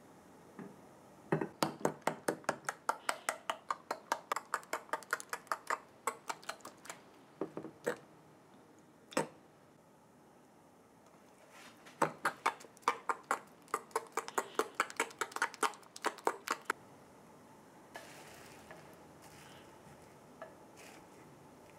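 Metal spoon clinking rapidly against a ceramic bowl while beating an egg yolk into grated yam, about four or five strikes a second, in two long runs with a single tap between them.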